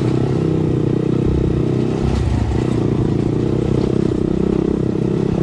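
Honda Monkey motorcycle's small single-cylinder engine running steadily while riding along.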